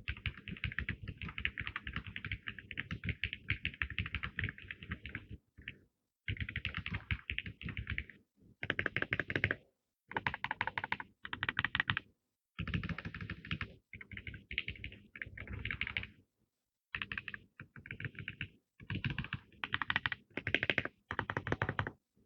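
RK R75 mechanical keyboard being typed on fast: a dense, unbroken run of key clacks for about the first five seconds, then a series of shorter bursts of rapid keystrokes, each about a second long, with brief pauses between.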